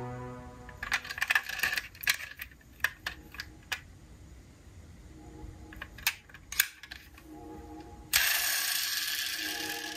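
Diecast model cars and their packaging being handled during unboxing: scattered small clicks, clinks and knocks, then about two seconds of loud rustling starting about eight seconds in.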